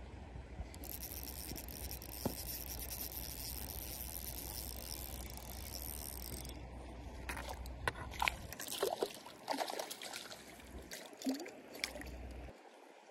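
A steady high hiss for about six seconds, then irregular water splashing and trickling with sharp clicks and scrapes.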